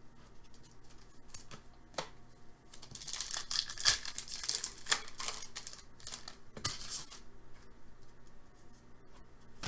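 Hockey trading cards handled by hand and slid against one another: a few sharp clicks, then a stretch of dry rasping, tearing-like noise about three to five seconds in and a shorter one near seven seconds.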